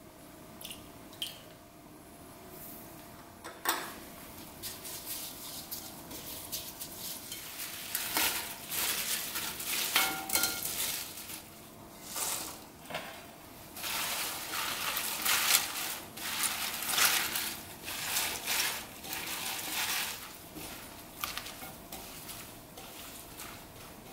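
Cut napa cabbage leaves being tossed with chili seasoning by a gloved hand in a glass mixing bowl: repeated bursts of crisp, leafy rustling through the middle of the stretch. Before that it is quieter, with a single sharp knock about four seconds in.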